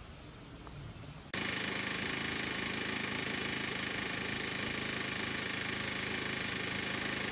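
A machine or power tool starts suddenly about a second in and runs steadily, a loud rushing noise with a high-pitched whine on top.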